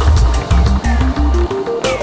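Electronic music with a heavy pulsing bass beat and crisp percussion, while a synth melody climbs step by step in pitch.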